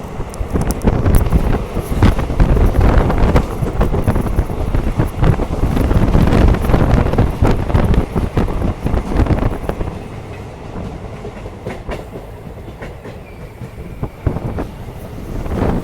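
Puri–Barbil Express passenger train running along the track: a steady rumble of wheels on rails with an irregular clatter of clicks. It is loudest for most of the stretch, eases off a few seconds before the end, then picks up again.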